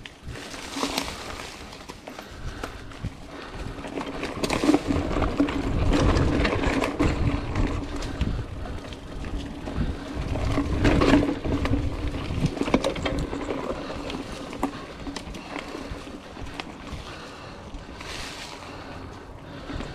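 Mountain bike (a 2019 Trek Roscoe 8 hardtail) ridden along a leaf-covered dirt singletrack: tyres rolling over dry leaves and the bike rattling over bumps, with many small clicks. Wind buffets the chest-mounted action camera's microphone as a low rumble that grows louder in the middle of the stretch.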